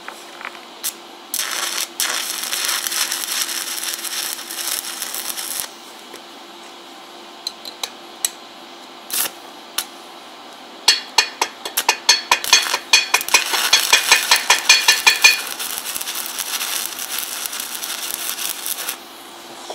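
Electric arc welding on steel flat bar: the arc hisses and sputters for a few seconds near the start, is struck briefly a couple of times in the middle, then crackles and pops rapidly through a longer run in the second half.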